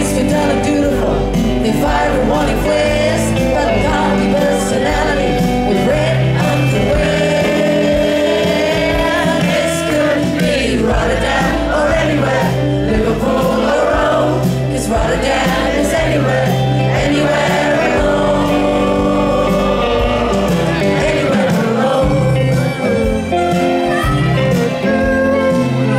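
Live pop band playing a song with singing over electric guitar, keyboard and drums, amplified and heard from within the audience.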